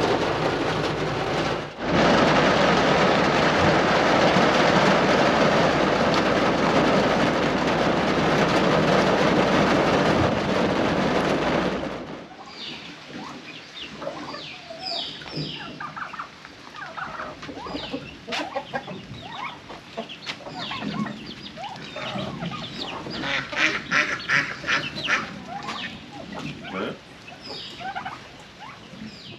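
Heavy rain on a pickup truck's roof heard from inside the cab, a loud steady hiss that cuts off about 12 seconds in. After that, a flock of chickens and turkeys clucks and calls.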